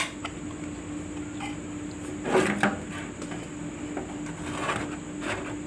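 A sharp click, then a few light knocks and rustles as a bare electric fan motor is handled on a workbench, over a faint steady hum.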